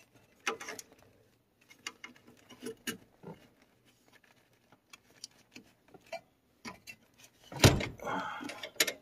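Scattered light clicks and rustles of hands feeding a wiring harness through a car's steering column, with a sharp louder knock and a short stretch of rustling near the end.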